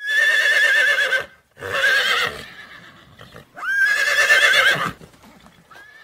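Horse whinnying: three loud, quavering neighs, the third opening with a rising glide, then a faint short one near the end.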